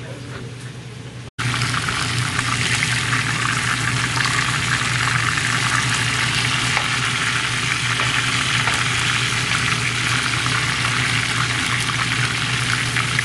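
Pieces of salt fish frying in shallow oil in a nonstick pan: a steady, dense sizzle full of fine crackles, starting abruptly about a second in after a quieter moment. A low steady hum runs underneath.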